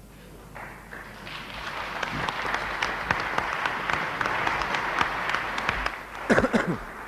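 Delegates in a large conference hall applauding. The clapping swells over a few seconds and then dies away. Near the end come a few loud knocks, the loudest sounds here.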